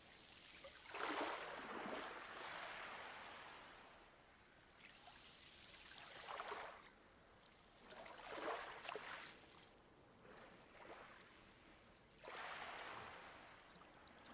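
Light waves washing onto a pebble beach: about four soft surges of water rushing over the stones, each swelling and draining away, with a quiet wash between them.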